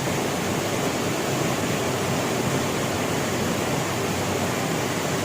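Water rushing steadily over a dam, a continuous even noise.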